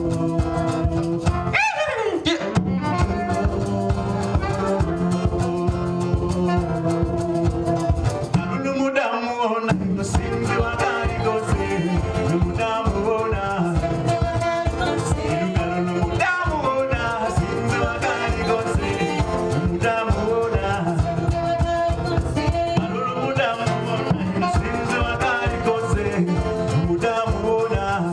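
Live acoustic band music with singing over a steady beat.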